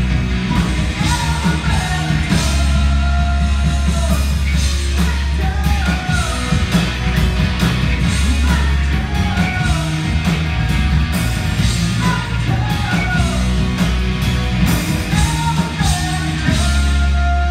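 Live rock band playing loud through a PA system, with electric guitars, bass and drums under a singer's voice.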